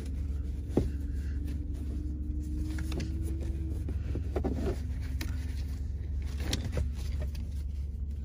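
A truck-cab seatbelt being pulled out and fastened around the door handle: a few sharp clicks and knocks from the belt and its metal latch, the loudest about a second in, over a steady low hum.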